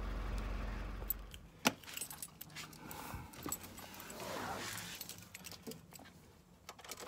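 Car keys jangling, with scattered sharp clicks and knocks as the ignition key is handled and turned. A low steady hum stops about a second in.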